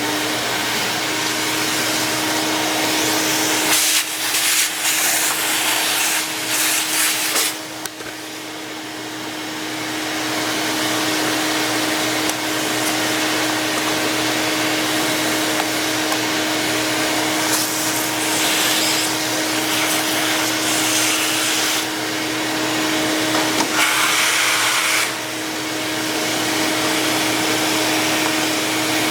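Vacuum cleaner running steadily: a constant motor hum under a loud rush of air. The rush grows louder and brighter for a second or two several times as it sucks up dirt.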